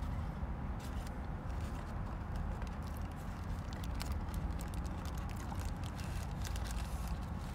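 Chewing close to the microphone, many small irregular mouth clicks, over a steady low rumble inside a car's cabin.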